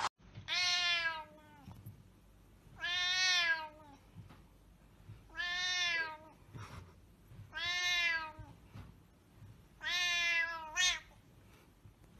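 A colourpoint cat meowing five times, each meow drawn out for about a second, spaced about two seconds apart.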